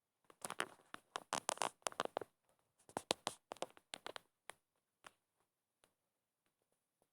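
A quick, irregular run of light clicks and taps from small hard objects, in clusters that thin out to a few single clicks and stop.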